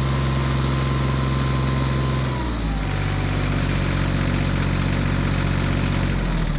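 Diesel tractor engine idling steadily, its pitch dropping a little about two and a half seconds in.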